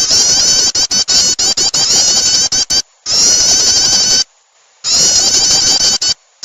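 Prinia (prenjak) lure call: loud, fast, repeated chattering notes. They come in three runs broken by short silences, about three seconds in and again near the end.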